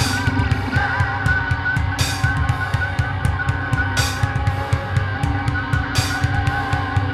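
Rock band instrumental: guitar with a wavering held tone over bass and drum kit, with a cymbal crash about every two seconds.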